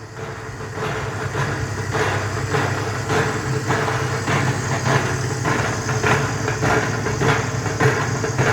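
Vemag Robot vacuum filler running: a steady motor hum with a regular pulsing about two to three times a second, growing louder over the first second or so.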